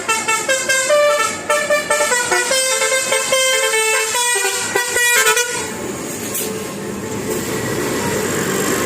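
Basuri bus's 'telolet' musical air horn playing a quick tune of changing notes for about five and a half seconds, then stopping; a steady rushing vehicle noise follows.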